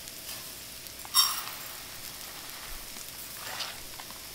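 Leeks sizzling steadily in butter in a frying pan as short-grain rice is poured in for toasting. There is one sharp metallic clink about a second in.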